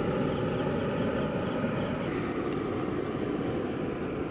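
Steady low roar of a large pot of sweet corn boiling hard over its burner. A high chirp repeats about three times a second from about a second in until past the middle.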